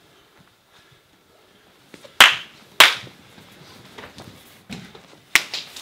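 Two sharp, loud hand claps about half a second apart, a couple of seconds in, followed by a scattering of softer hand claps and slaps.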